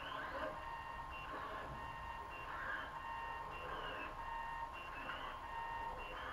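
Delta 3D printer's stepper motors whining as the effector makes a series of short moves over the bed during an auto-calibration run: high steady tones that cut off and start again, with brief rising and falling glides as the motors speed up and slow down.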